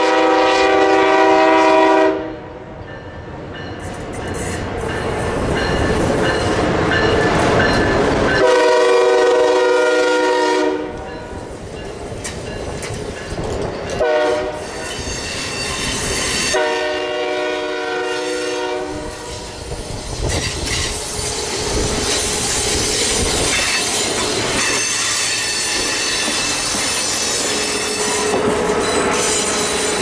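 Amtrak train horn: a long blast ends about two seconds in, then a long, a short and a long blast follow, the standard grade-crossing signal. Afterwards the train runs past with a steady rumble and clatter of wheels on rail.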